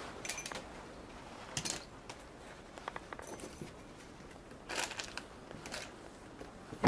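Small metal tools being handled and set down: a handful of light clinks and rattles about a second apart, with a sharp knock near the end.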